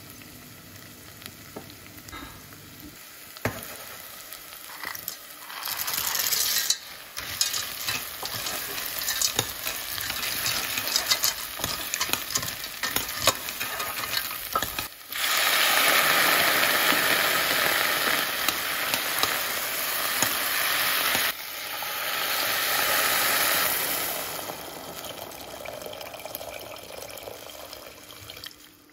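Diced onion sizzling in butter in a stainless steel pot, stirred with a metal spoon that scrapes and clinks against the pot. About halfway through the sizzling gets louder as pasta shells are stirred through the hot pot.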